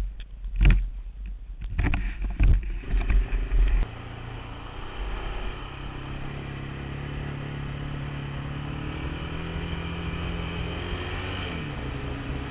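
Irregular knocks and rumbles of a camera being handled for the first few seconds, then a Honda TRX700XX ATV's single-cylinder engine running steadily under way on a gravel track, easing off near the end.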